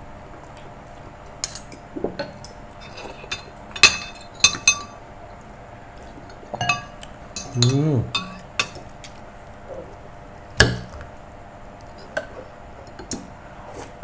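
Metal spoons and forks clinking and scraping against ceramic plates and bowls as people eat, in scattered sharp taps at irregular intervals.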